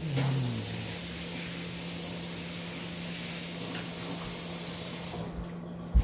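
Kitchen tap running in a steady hiss of water during hand washing, stopping about five seconds in. A sharp thump follows just before the end.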